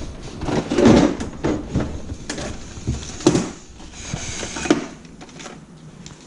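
Irregular metallic knocks and clunks of hand tools working on a brake caliper as its 14 mm bolts are undone. The loudest knocks come about a second in and again about three seconds in.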